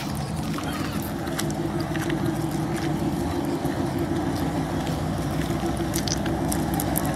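Narrow-gauge diesel locomotive's engine running steadily as the locomotive moves slowly along the station track.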